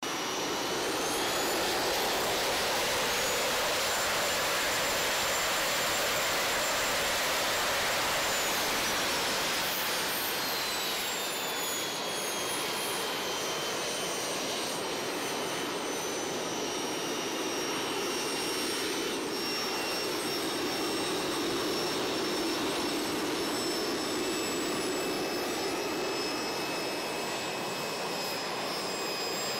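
Jet suit's small turbine engines running with the pilot standing on the ground: a steady jet roar with several whines that climb in pitch over the first couple of seconds, hold high, then fall back around ten seconds in and hold steady at a lower pitch.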